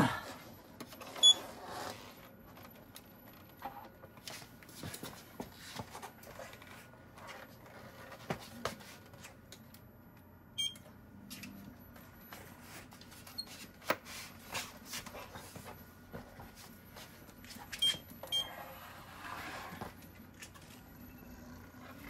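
Kingsong S22 electric unicycle switched on: a few short electronic beeps and handling clicks and knocks over a faint, steady high chirping whine. The chirping, which the owner calls a 'hummingbird' or 'burr noise', comes from the control board when power goes to the new 4000 W motor, and he counts it as a problem with the new motor.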